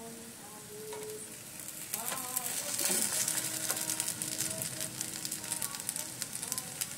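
Wingko cakes of coconut and glutinous rice frying in margarine on a double-sided grill pan, sizzling with fine crackling spits. The sizzle grows louder about two seconds in, as a cake is turned over.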